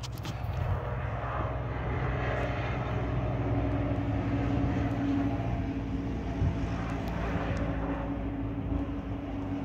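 A steady engine drone with a low hum, growing a little louder through the middle and easing off toward the end.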